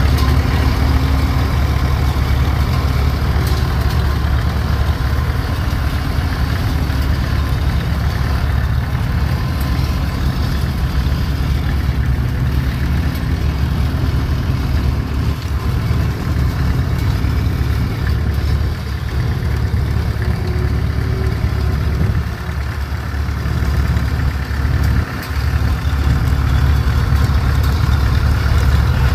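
Farmall Super H tractor's four-cylinder engine running steadily at low speed as the tractor is driven away and then back. It fades a little about three-quarters of the way through and grows louder near the end as the tractor comes close.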